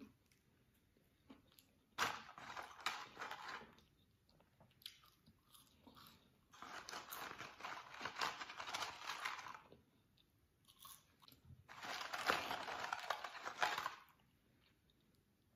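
Three bursts of crunching and rustling, each a few seconds long, from McDonald's fries and chicken nuggets being eaten close to the microphone, with faint room tone between them.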